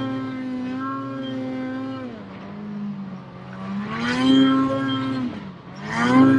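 2017 Ski-Doo Summit Burton snowmobile's two-stroke engine under throttle in deep powder. It holds a high steady pitch, drops off about two seconds in, revs back up near four seconds, dips briefly and climbs sharply again near the end.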